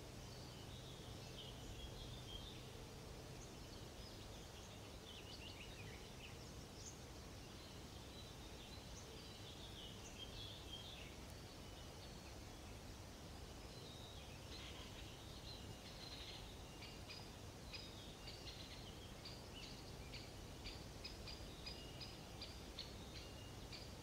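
Songbirds singing faintly over a low, steady background noise. Scattered warbling phrases come first, then about two-thirds of the way through one bird takes up a long run of short, evenly repeated high notes, a few each second.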